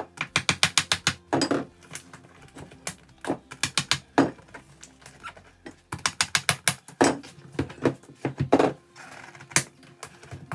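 Flathead screwdriver prising open the glued, stapled front of a fabric sample book: loud runs of rapid clicks and cracks in several bursts with short pauses between them, and a few short scrapes.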